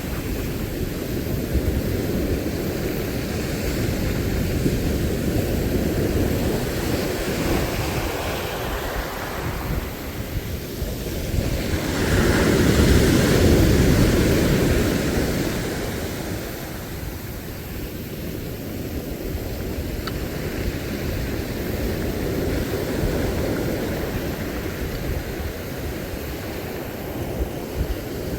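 Sea surf washing ashore with wind on the microphone; one wave swells up loudest partway through, then falls away.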